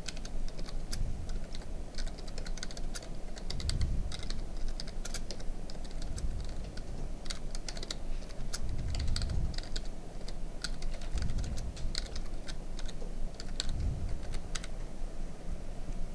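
Typing on a computer keyboard: a string of irregular keystroke clicks as a line of text is entered, with a few dull low thumps underneath.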